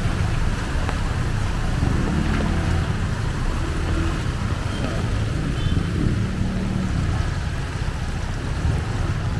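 Flooded street ambience: a steady low rumble under an even rushing wash of moving floodwater.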